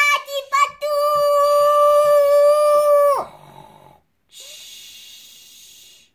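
A child's voice gives a few short cries, then one long, high, steady scream that holds for about two and a half seconds and cuts off. A snore follows about a second later.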